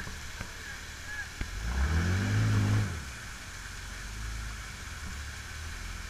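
Side-by-side off-road vehicle's engine revving hard for about a second and a half as it pushes up against the waterfall ledge, its pitch rising, holding, then dropping back to idle, over the steady rush of falling water.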